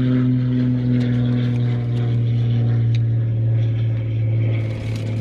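A steady engine drone, its pitch sinking slightly. Faint clicks of a brake pad being handled at the caliper.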